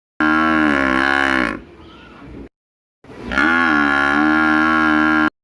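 Buffalo mooing: two long, loud calls, the second starting about three seconds after the first.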